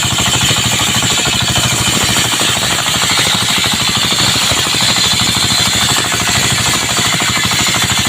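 Engine-driven circular sawmill (serkel) running steadily, with a fast, even pulsing from its engine and a steady high whine over it.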